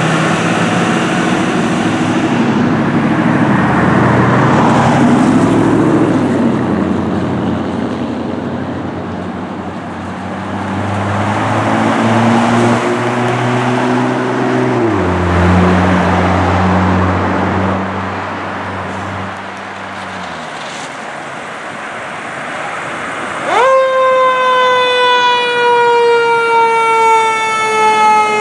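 Fire apparatus diesel engines running amid street traffic, one engine revving up for a few seconds about halfway through and then dropping back. Near the end a fire engine's siren is switched on: a quick rise, then a long wail slowly falling in pitch.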